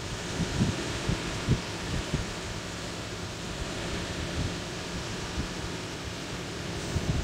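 Small sea waves washing onto a sandy beach in a steady hiss of surf, with wind buffeting the microphone in irregular low thumps, most often in the first two seconds.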